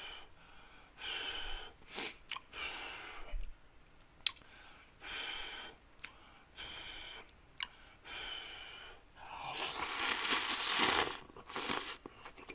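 A person eating ramen noodles: repeated slurps and sharp breaths through the mouth between mouthfuls of very spicy noodles, with one long loud slurp about ten seconds in.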